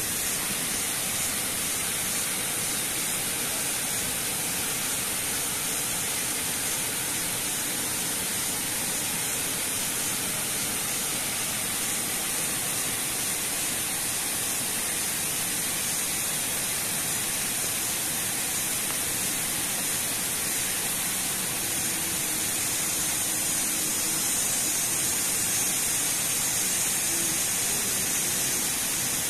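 Water pouring over a concrete weir spillway: a steady, unbroken rushing hiss of falling water.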